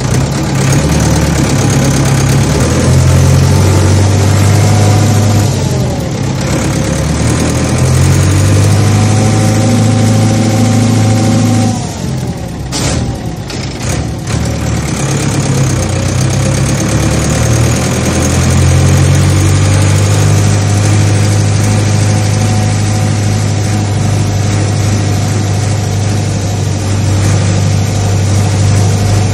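Heavy farm machinery engines running with a steady deep hum, the pitch shifting a few times, with a short break about twelve seconds in.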